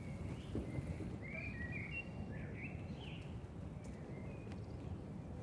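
Birds giving several short chirping calls during the first three seconds or so, over a steady low rumble.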